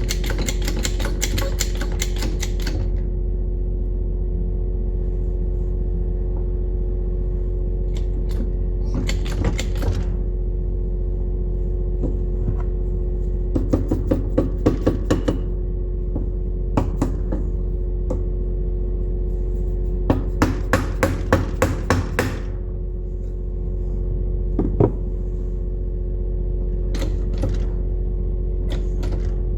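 A steady machine hum, like an engine running, with several bursts of rapid sharp clicking, each lasting a second or two.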